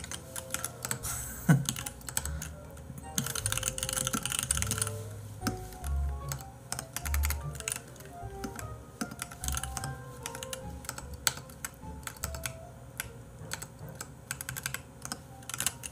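Typing on a computer keyboard: irregular runs of quick key clicks, over soft background music.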